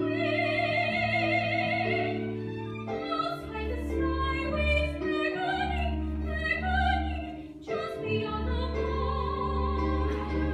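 A soprano singing a sustained, lyrical operatic melody with wide vibrato, over a small orchestra's held chords and a pulsing bass line.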